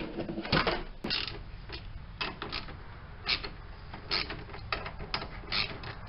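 Plastic air filter housing and intake duct of a Ford E-350 van being fitted back over the engine and fastened with a socket ratchet: irregular plastic clicks and knocks mixed with ratchet clicking.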